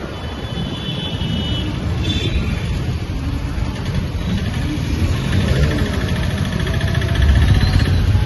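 Street traffic: vehicle engines running with a dense low rumble that grows louder toward the end.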